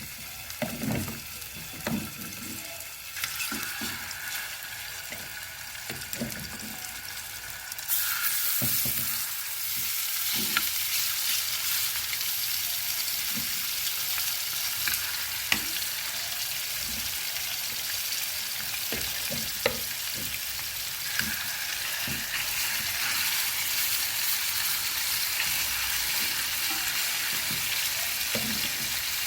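Small chicken breast fillets frying in fat in a pan: a steady sizzle that grows louder about eight seconds in, with a few low knocks near the start and occasional sharp clicks.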